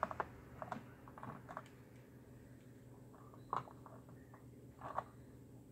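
Light clicks and taps from small objects being handled, about seven in all, spaced irregularly, with the sharpest near the start and two more about 3.5 and 5 seconds in.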